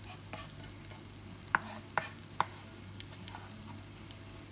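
A knife knocks sharply on a wooden chopping board three times in quick succession around the middle, cutting ginger. Underneath, onion wedges sizzle faintly as the wok comes back up to heat.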